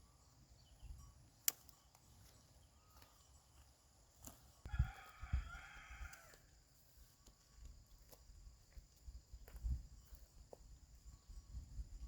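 A rooster crowing once in the middle, faint against a steady high buzz of insects, with scattered low thumps and clicks.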